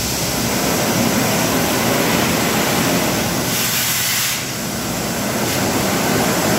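Shotcrete spraying from a hose nozzle onto a steel-mesh-covered wall: a loud, steady rush of air-blown concrete, with a brighter hiss for about a second partway through.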